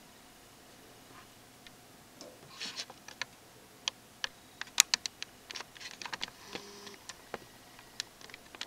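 Handling noise: irregular light clicks and taps, with a short rustle about two and a half seconds in, then a busy run of clicks whose sharpest falls near five seconds, as the generator's carry handle and case are gripped and moved.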